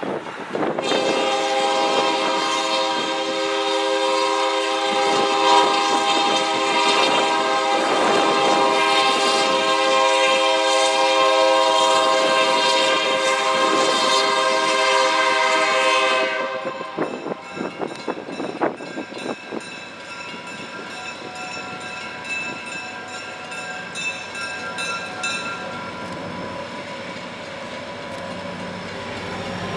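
Diesel locomotive No. 2185's air horn blowing a chord for a road crossing for about fifteen seconds, stopping suddenly. After it, the train rumbles past with a steady ringing that fits a crossing bell.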